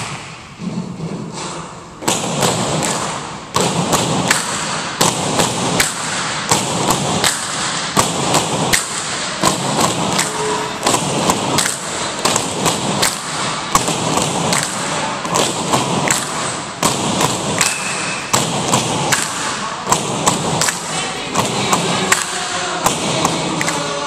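Tinikling poles struck against the gym floor and knocked together in a steady rhythm of sharp knocks, starting about two seconds in, with dancers' feet landing between them.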